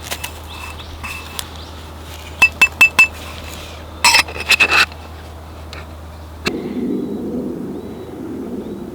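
Dishes clinking: four quick ringing taps about two and a half seconds in, then a rattling cluster of clinks a second later. A steady low rushing sound starts suddenly about two-thirds of the way through.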